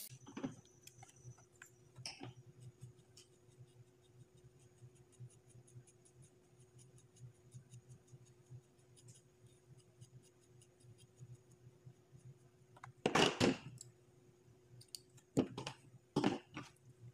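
Small handling noises of tools and vape parts on a table: scattered faint clicks and ticks, a louder clatter about 13 seconds in, and a few more knocks near the end, over a faint steady hum.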